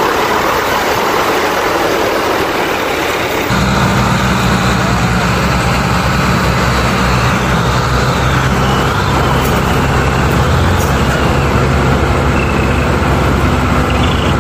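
Tractor's diesel engine running hard under a heavy load, louder and stronger from about three and a half seconds in as it pulls an overloaded sugarcane trolley. The weight is enough to lift the tractor's front wheels.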